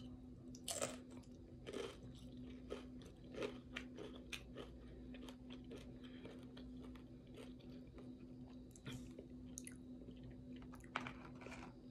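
Close-up chewing of crunchy tortilla chips: a run of irregular, crisp crunches and bites with soft mouth sounds between them. A faint steady hum runs underneath.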